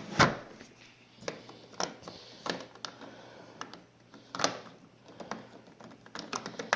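Scattered light clicks and knocks of tools and sockets being handled in the drawer of a Kobalt 227-piece tool set, a sharper knock just after the start and another about four and a half seconds in, with a quick cluster of clicks near the end.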